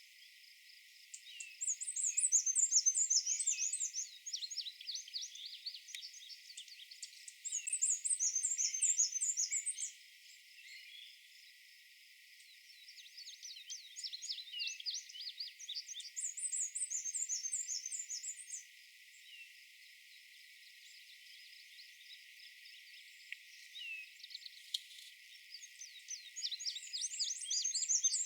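Black-and-white warbler singing a complex, unvarying version of its high squeaky-wheel song in four bouts about eight seconds apart, which the narrator takes for a fully crystallized adult song. Lower phrases from an indigo bunting repeating two-element phrases and a gray catbird come in between.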